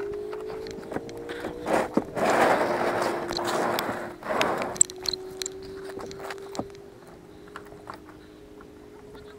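Rustling and scraping of a jacket against a chest-worn camera's microphone, loudest about two to four seconds in, with scattered small clicks. Under it runs a steady low drone that slowly rises a little in pitch.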